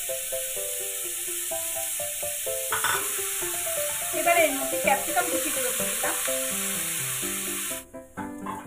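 Chopped onion sizzling as it fries in a hot metal kadai, with a spatula stirring and scraping it a few times in the middle. The sizzle cuts off suddenly near the end, leaving a background music melody.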